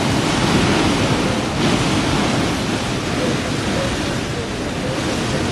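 Strong gusting wind from Hurricane Sandy, a loud steady rush that eases slightly toward the end.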